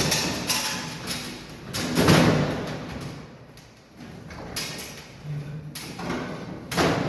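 Irregular knocks and thuds with scraping between them, about half a dozen strokes of uneven loudness, the strongest near the start, about two seconds in and near the end.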